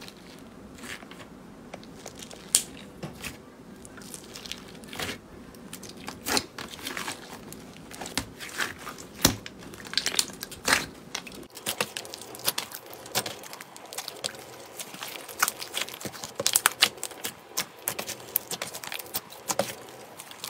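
Clear slime and white butter slime being squeezed, kneaded and pulled apart by hand, giving many irregular sticky crackles and pops.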